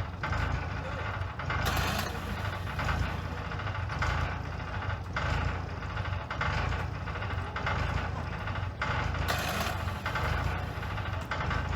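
Komatsu bulldozer's diesel engine running under load, steady and deep, swelling and easing about once a second, with a couple of brief harsher scraping or clanking bursts.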